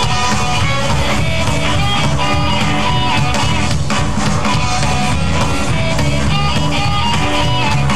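Live blues-rock band playing: electric guitar, electric bass and drum kit, with a harmonica played into a cupped hand-held microphone carrying sustained notes over the steady beat.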